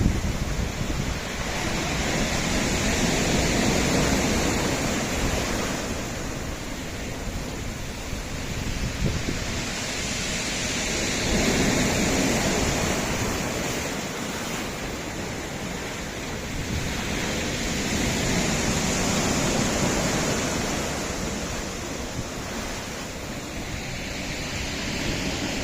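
Sea waves washing onto a rocky shore: a steady surf that swells and eases slowly, with three broad surges.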